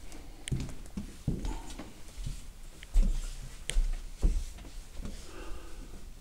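Footsteps and knocks from a handheld camera being carried through a room: irregular soft thumps and clicks, the loudest about three and four seconds in.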